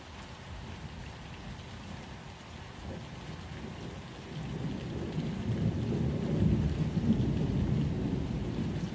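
Steady rain falling, with a low roll of thunder that swells from about four seconds in and fades near the end.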